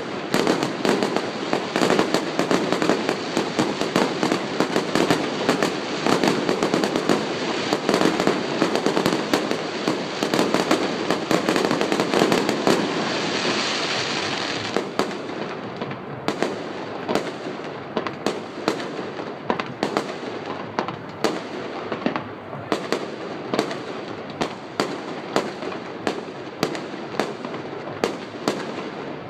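Fireworks going off: a dense, rapid crackle of many small bangs, with a hissing swell a little before halfway, then thinning out into separate sharp cracks several times a second.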